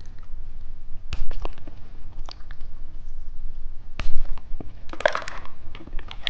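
Close-miked eating sounds: scattered clicks and smacks of eyeball gummy candy being bitten and chewed, with a louder rustling cluster about five seconds in.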